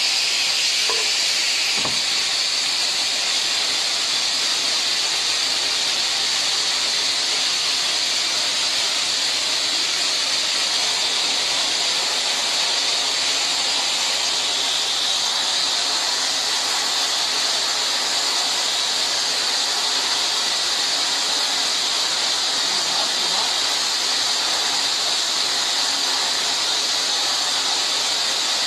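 A steady, unbroken hiss, strongest in the upper range, holding the same level throughout.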